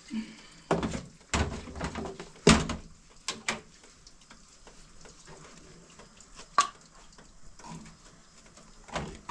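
Dishes and pots being handled, making a run of irregular knocks and clinks. They come thickest in the first few seconds, with the loudest about two and a half seconds in, then a few spaced-out clinks later.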